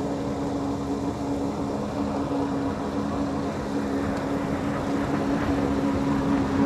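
A boat motor running steadily: an even hum that gets slightly louder toward the end.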